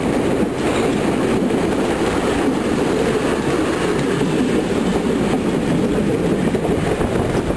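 Steady rumble of a steam-hauled heritage passenger train's coaches rolling over the track, heard from on board.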